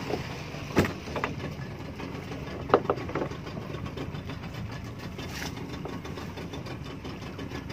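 Small fishing boat's engine running steadily at low speed while the net is paid out. Two sharp knocks come about one second and about three seconds in.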